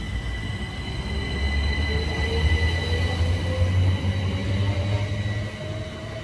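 Two coupled Class 387 Electrostar electric multiple units accelerating away from the platform. The traction motors give a steadily rising whine over a low rumble of the train on the track, which swells and then eases, with several steady high-pitched tones on top.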